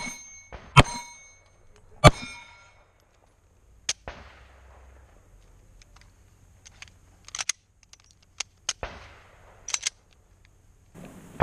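Pistol shots at steel plate targets: three shots in the first two seconds, each followed by the ring of a struck steel plate. After that, only a few fainter sharp clicks.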